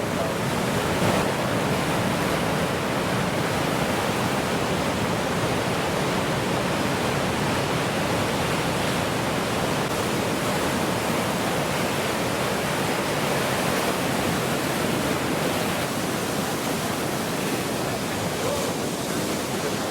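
Steady rushing of surf and churning water, loud and close on the microphone.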